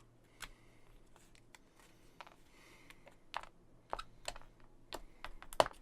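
Irregular small clicks and taps of thin laser-cut wooden terrain pieces being popped out of their sheet and handled, about eight in all, with the sharpest snap near the end.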